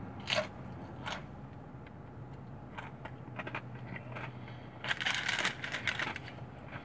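Crunching of a deep-fried Burger King taco shell being chewed close to the microphone: a few single crunches, then a run of louder crunches about five seconds in.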